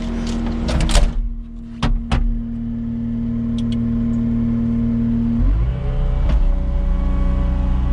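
Cat 259D compact track loader's diesel engine running steadily with a held whine. Several sharp metal clanks come in the first two seconds and one more near six seconds. About five and a half seconds in, the engine note steps up in pitch and holds there.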